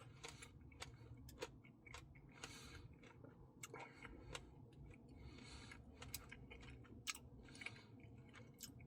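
Faint, close-miked mouth sounds of someone eating ice cream: soft chewing and wet lip smacks. Scattered small clicks and a few short hissy sounds run through it.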